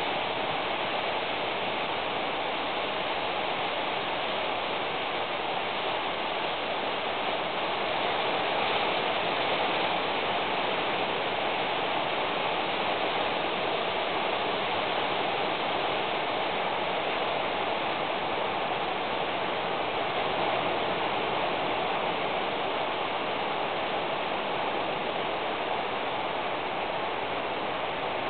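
Steady rain, an even rushing noise with no breaks and no single drops or knocks standing out.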